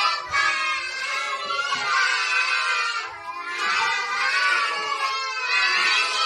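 A group of young children singing a birthday song together, with a short break about three seconds in.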